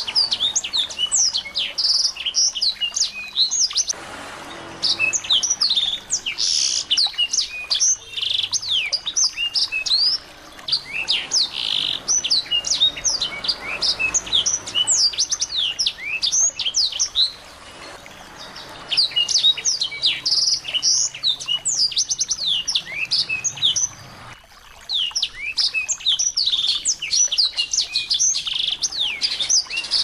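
Small songbird singing a fast, high twittering song of quick falling chirps, in phrases broken by short pauses every few seconds.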